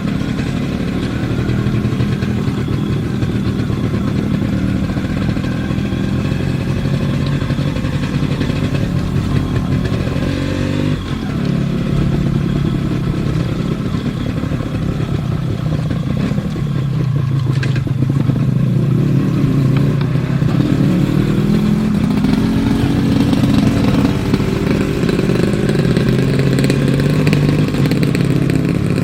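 Yamaha RX 135's two-stroke single-cylinder engine running under way, its pitch falling and rising several times as the bike slows and picks up speed. There is a brief break about a third of the way in, like a gear change, and a deeper drop in pitch a little past the middle before it climbs again.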